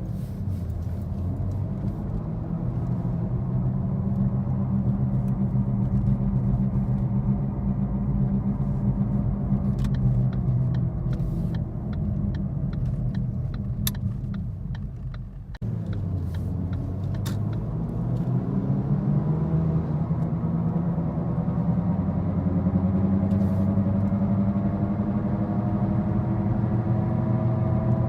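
Loud low drone heard inside the cabin of a 2013 Ford Focus on the road, falling away as the car slows about 13 seconds in, then rising in pitch again as it picks up speed. This drone is the sign of a bad left-front wheel bearing.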